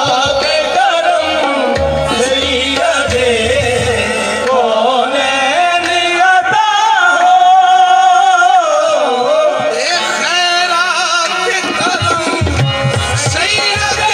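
Qawwali: a male lead voice singing with harmonium accompaniment and a drum beat. The beat drops out for several seconds in the middle while the singer holds a long note, and comes back near the end.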